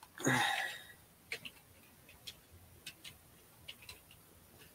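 Computer keyboard keys tapped in short irregular runs, faint sharp clicks, some in quick pairs. A brief breathy sound comes just before the first clicks.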